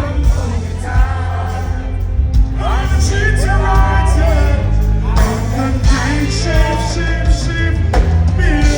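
Live dancehall reggae played loud through a concert sound system: heavy bass with a voice singing over it.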